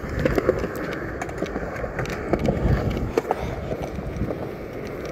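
Skateboard wheels rolling over concrete: a steady rumble with scattered clicks and knocks from the board.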